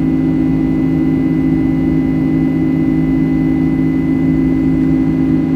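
Boeing 737 jet engines and airflow heard inside the passenger cabin in flight: a steady, loud drone with a low hum and a faint thin high whine.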